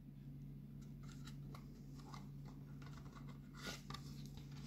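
A stiff cardboard board-book page being handled and turned: faint scrapes and clicks, with a louder crackle about three and a half seconds in.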